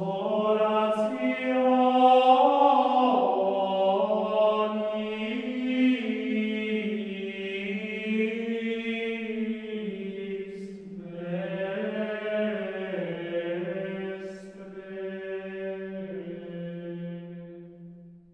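Slow chanted singing with long held notes that step from pitch to pitch, breaking off briefly about ten seconds in, then resuming and fading out at the end.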